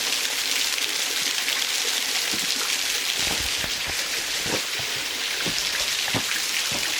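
Creek water falling through a hole in solid rock at the top of a waterfall: a steady rushing hiss, with a few light taps.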